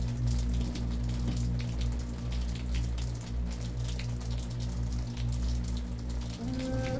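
Rain falling, scattered drops pattering over a low steady drone. Near the end, higher sustained tones come in.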